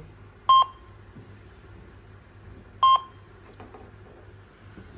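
Jezi-W05 Wi-Fi alarm control panel giving two short electronic beeps, about two and a half seconds apart.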